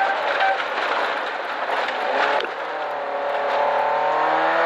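Rally car's engine heard from inside the cabin at speed, under a loud rush of tyre and road noise. About three seconds in, the engine note comes through clearly and its pitch falls steadily as the revs drop.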